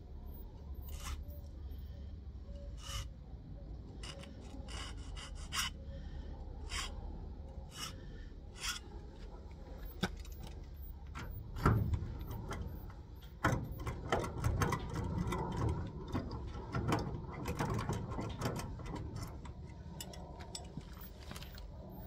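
Metal rubbing, scraping and clicking from impressioning a key for a garage door lock: a key blank is worked in the lock with locking grips and filed. Scattered clicks in the first half give way to denser, louder rubbing from about halfway through.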